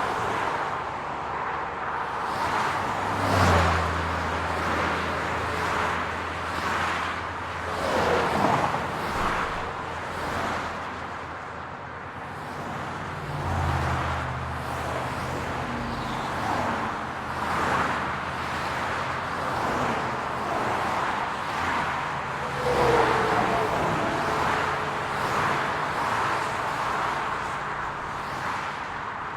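Street traffic: cars passing one after another with engine and tyre noise. A vehicle's engine hums low and steady from about three seconds in to about eight, and again from about thirteen to twenty-three seconds.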